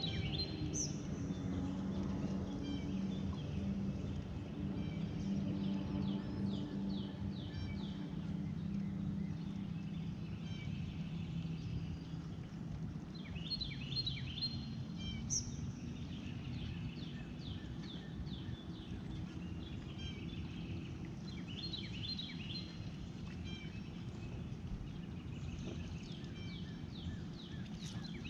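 Birds chirping in quick runs of high notes, several times over, above a low steady hum and a constant outdoor noise bed.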